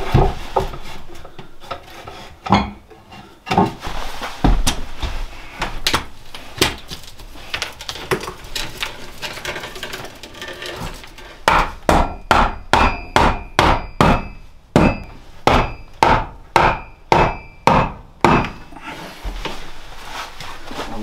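Hammering on wood. First come scattered knocks as wood is handled, then about halfway through a steady run of over a dozen hammer strikes, two to three a second, each with a short metallic ring.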